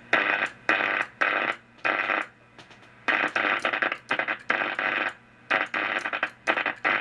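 A spark-gap transmitter driven by a car ignition coil firing about 100 times a second, heard through a Drake tube receiver as a harsh buzzing hiss. It is keyed on and off in bursts of a fraction of a second, with short gaps between them, like Morse code.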